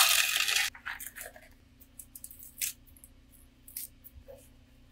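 A loud rustle in the first moment, then scattered light scrapes and crackles from hands handling succulents and potting soil, over a faint steady low hum.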